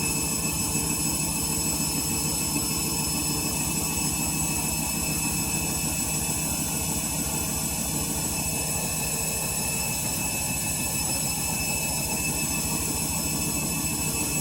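Candy Grande Vita 7 kg washing machine on its final spin: a steady rumble and hum with a fast, even pulse from the turning drum. The owner takes the noise as a sign that the drum bearings are on the way out.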